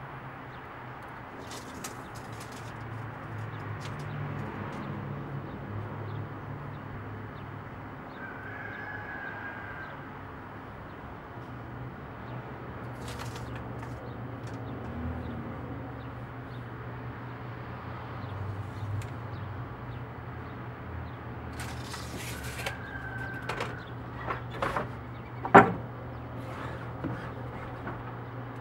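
Wooden deck rails being handled and set on a miter saw stand: scattered clicks and knocks of wood, with one sharp knock about 25 seconds in, over a steady low hum. The saw is not running.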